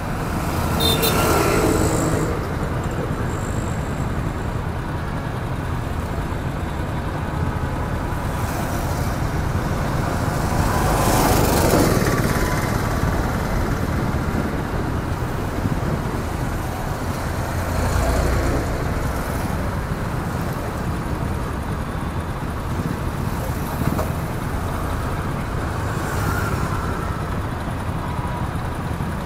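Motorcycle ride through city traffic: steady engine and road noise, with other vehicles passing close by. The passes swell louder about a second in, around the middle, and again a little later.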